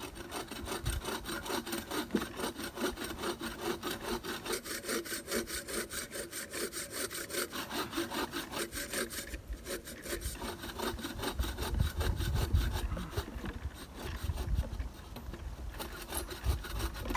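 Bow saw cutting through a length of wood in steady back-and-forth strokes, about three a second.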